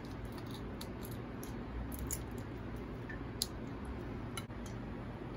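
Raw shrimp being peeled by hand: scattered small crackling clicks as the shells come off, with one sharper click about three and a half seconds in, over a steady low hum.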